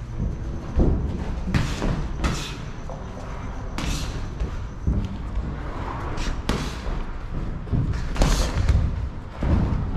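Boxing sparring: gloved punches landing on gloves and headgear as repeated dull thuds, with several sharper slaps or hissing bursts spread through the exchange.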